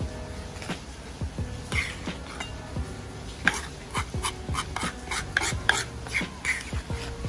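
A utensil scraping and clinking against a stone mortar and a ceramic plate as sauced gado-gado is scooped out: irregular clicks and short scrapes.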